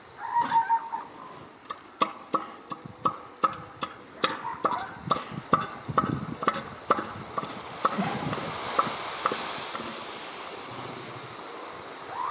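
Northern elephant seal calling with its head raised: a rhythmic train of sharp pulses, about two and a half a second, for several seconds, followed by a longer harsh rasp.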